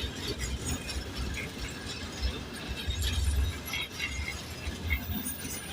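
Freight train wagons rolling past, an uneven low rumble with scattered short metallic clinks and squeaks from wheels and couplings.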